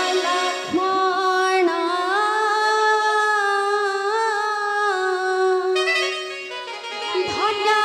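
A girl singing a slow melody in long held notes with musical accompaniment, the notes wavering slightly; the line pauses briefly near the end before new notes begin.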